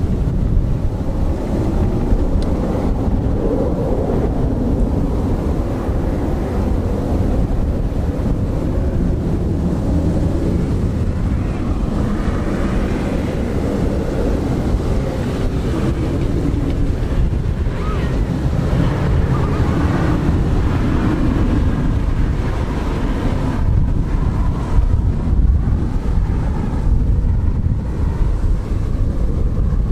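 Embraer E175 jet's twin turbofans heard from the ground as it climbs away after takeoff: a steady, heavy rumble with a faint wavering whine above it, mixed with wind buffeting the microphone.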